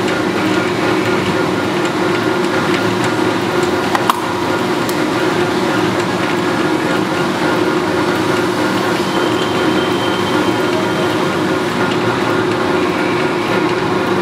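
Lodge & Shipley hollow-spindle oil country lathe running under power: a steady mechanical hum with several constant tones from the spindle drive and gearing, and one sharp click about four seconds in.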